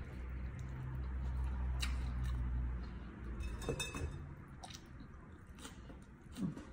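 Close-up chewing of a mouthful of fish dip and fresh leafy greens, with a low hum in the first half and scattered short clicks later.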